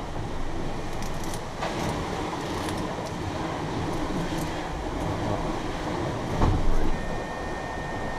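Steady rumbling rush of a sailing boat under way at speed, heard from inside the hull as water streams past. It swells louder for about half a second some six and a half seconds in.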